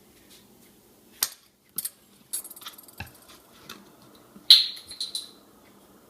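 A spoon and a soy sauce bottle being handled on a kitchen counter: a few sharp clicks and a rattle, a dull knock about three seconds in, and a louder bright clink with a short ring about four and a half seconds in.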